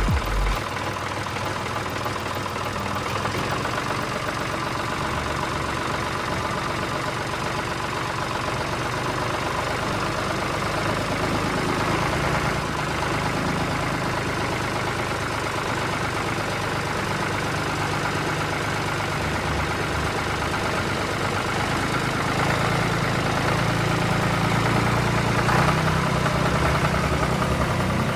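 Tractor engine running steadily at low revs, a continuous low chug with small swells in level.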